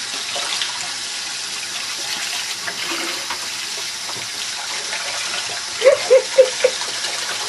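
Water running steadily from a tap during a dog's bath. About six seconds in, a voice makes four quick short sounds in a row.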